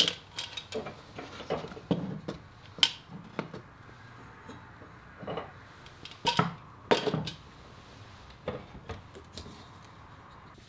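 Small desk ornaments being picked up, shifted and set down on a shelf. A string of light knocks and clinks, with the busiest handling right at the start and again about six to seven seconds in.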